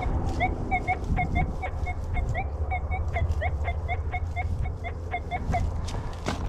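Metal detector giving a rapid run of short electronic beeps, about four a second, a few of them bending slightly in pitch, over a low rumble.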